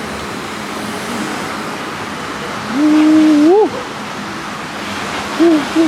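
Steady road noise inside a moving vehicle. About three seconds in, a loud drawn-out vocal call holds one pitch for most of a second and then slides up. A short rising-and-falling call follows near the end.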